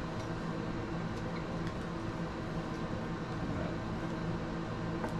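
Steady low hum of a household appliance running, with a few faint light knocks of a knife and metal measuring cup as shortening is scooped into a glass bowl.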